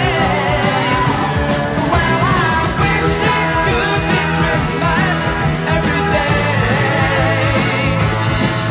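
Background music: a song with a singing voice over a rock-style band.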